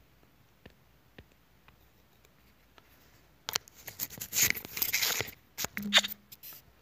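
A few faint clicks, then about three seconds of loud rustling and scraping noise that stops shortly before the end.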